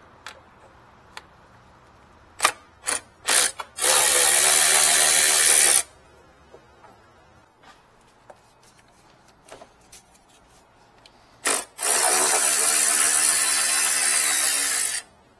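Power tool spinning bolts: a few short trigger blips, then a steady run of about two seconds, and later one short blip and a run of about three seconds.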